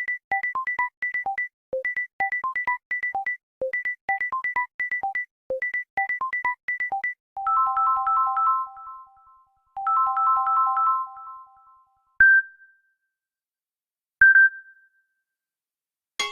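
Android phone ringtones: a fast, repeating pattern of short synth beeps in phrases, then two longer bell-like chords. After that come two single chime tones about two seconds apart.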